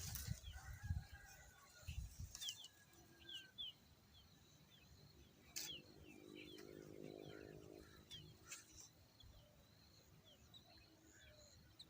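Faint, repeated short high chirps of bird chicks peeping, each falling in pitch, scattered throughout. A lower pitched sound lasting about a second comes around six seconds in, with a few sharp clicks.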